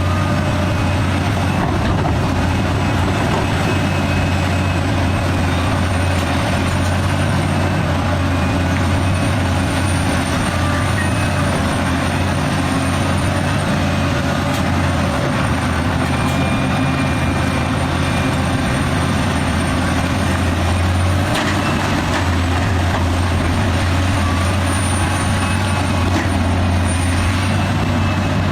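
Liebherr R984 hydraulic excavator's diesel engine running steadily under load, with a faint high whine that comes and goes several times.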